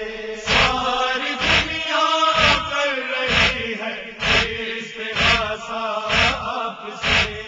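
A men's voices chanting a noha refrain without instruments, kept in time by matam chest-beating: a thump about once a second.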